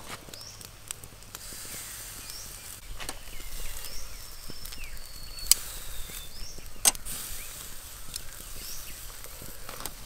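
Short bird chirps repeating every second or two over a steady outdoor hiss, with a few sharp clicks or knocks, the loudest two about five and a half and seven seconds in.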